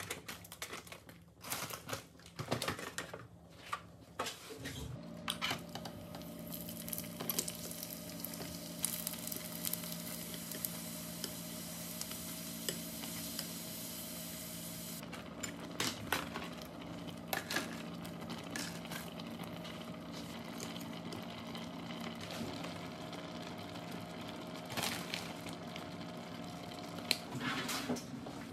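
Light clicks of breaded cheese sticks being set on a metal baking tray, then, about five seconds in, fish cakes sizzling in a frying pan on an induction hob. The hob's steady hum runs under the sizzle, and chopsticks tap and scrape against the pan now and then.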